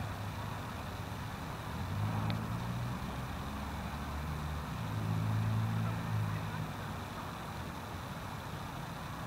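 Street traffic: a steady hum with a low engine drone that swells twice as vehicles pass, once about two seconds in and again, louder, around five to six seconds in.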